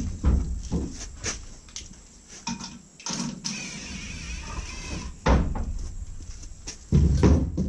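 Wooden shelf parts knocking and scraping as they are slid and stacked onto a trailer's plywood floor: scattered wooden knocks, a scraping slide about three seconds in, and heavy thumps about five seconds in and again near the end.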